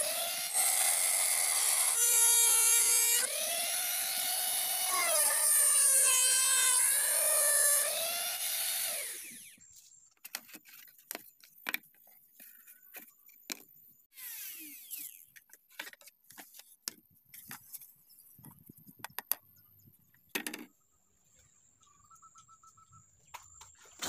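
Mini rotary grinder with a small cutting disc cutting into PVC pipe, a high whine rising and falling in pitch. It stops about nine seconds in, leaving scattered faint clicks and knocks.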